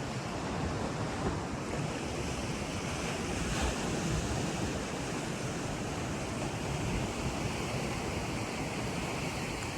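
Steady rush of ocean surf and fast-moving tidal current at a breachway, with wind buffeting the microphone.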